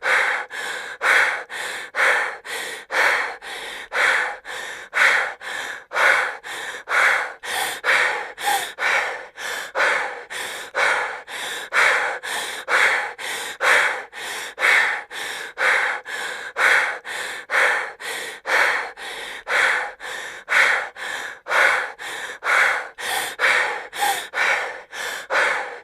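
A woman breathing heavily and quickly through the mouth, a loud breath alternating with a softer one in a steady rhythm of about one in-and-out cycle a second.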